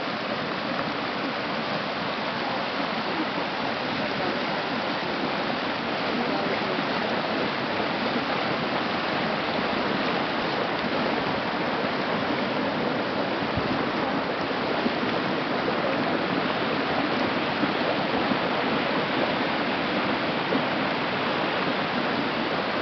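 Geothermal hot-water stream rushing and churning over a rocky bed, a steady roar of moving water that grows slightly louder after a few seconds.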